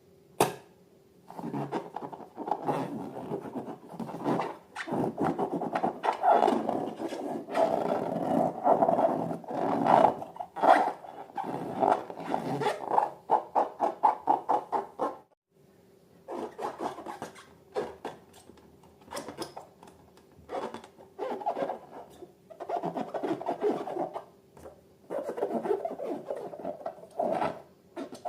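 Slime being worked by hand with balloons: dense wet squelching and crackling clicks with squeaky rubbery sounds, broken by a sudden stop about halfway through before it resumes.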